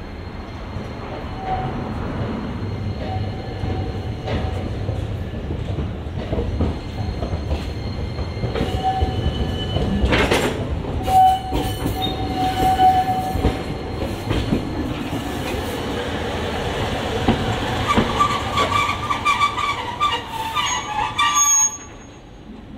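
Toden Arakawa Line streetcar running with its steel wheels squealing on the rails, in several drawn-out squeals amid rumbling and knocks. The squeal turns higher-pitched and louder late on, then the sound drops away suddenly near the end.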